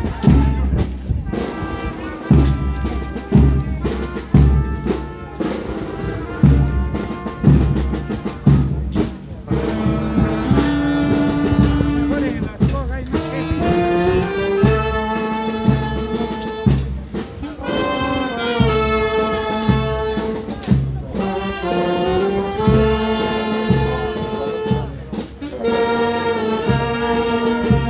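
Brass band playing a slow procession march: a steady low drumbeat at first, then trumpets and trombones holding chords from about ten seconds in.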